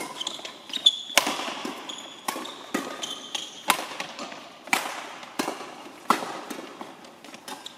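Badminton rally: rackets striking a shuttlecock again and again, sharp hits about one every half second to a second, echoing in a large sports hall, with short high squeaks of court shoes on the sports floor between them.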